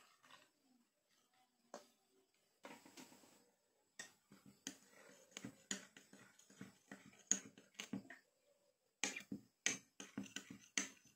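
A spoon stirring a drink in a stemmed glass, clinking against the glass in irregular sharp taps. The clinks start about four seconds in and come thickest near the end.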